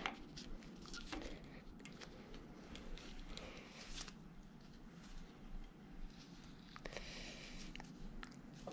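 Faint scattered clicks and small metallic knocks as a steel bench vise is wound in by its sliding T-bar handle, slowly squeezing a greased polyurethane bush into a sway bar link arm.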